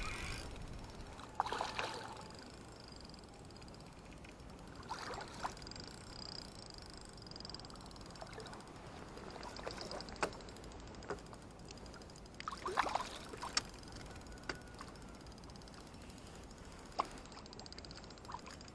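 A hooked fish splashing at the surface beside a small wooden boat, with occasional knocks from handling in the boat. Short splashes come every few seconds, with the busiest run about two-thirds of the way through.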